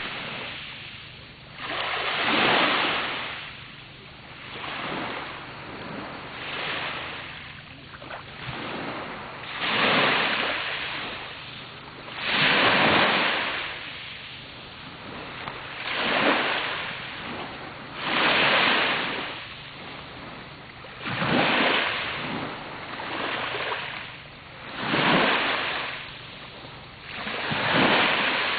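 Small sea waves breaking and washing up on a beach, a new swell every two to three seconds.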